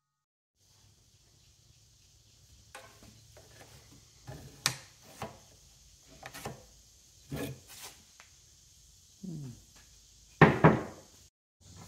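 Lumber being handled on a miter saw table while the saw is off: wooden knocks and short scrapes as a 4x4 post and boards are set down, shifted and marked. The loudest is a quick double knock of wood near the end.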